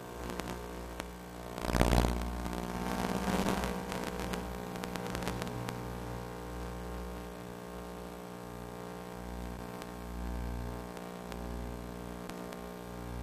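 A steady electric hum made of many even tones, with wind gusting on the microphone in uneven low rumbles. A louder rush of wind noise comes about two seconds in and dies away by about four seconds.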